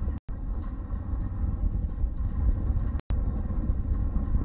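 Steady low rumble with a faint hiss over it, cut three times by a split-second drop to silence.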